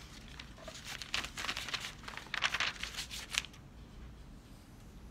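Rustling, crinkling noise in a run of short bursts from about one to three and a half seconds in.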